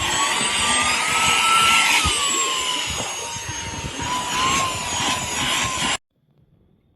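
Cordless handheld vacuum's motor running with a high-pitched whine over a rush of air, its pitch rising a little and then sinking back. It stops suddenly about six seconds in.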